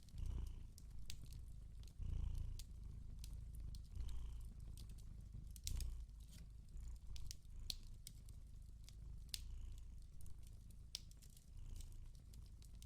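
Cat purring: a low rumble that swells roughly every two seconds, with a log fire's sharp crackles and pops scattered over it.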